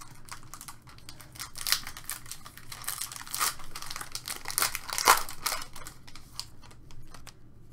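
A trading-card pack's wrapper being torn open and crinkled by hand. The irregular crackling is busiest through the middle and dies down after about six seconds.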